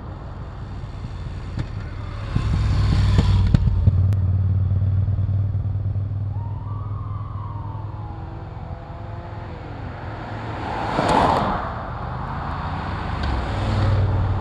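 Motorcycles and cars of a race convoy driving past at road level. A motorcycle's engine hum swells as it goes by a few seconds in, another vehicle sweeps past with a rush of tyre and wind noise about eleven seconds in, and engines build again near the end as more approach.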